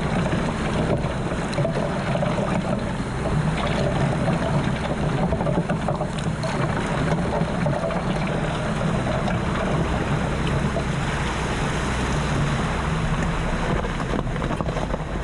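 Jeep Wrangler engine running steadily at low speed along an off-road trail, under a constant rushing noise.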